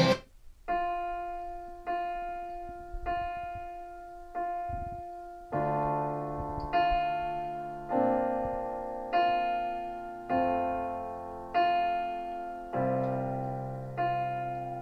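Solo piano playing slow repeated chords, about one a second, each ringing and fading before the next, with fuller and deeper chords from about halfway. It is recorded off a pair of hi-fi loudspeakers in the room.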